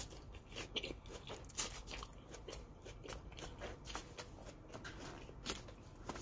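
A person chewing a mouthful of salad close to the microphone, with many small irregular crunches and wet clicks.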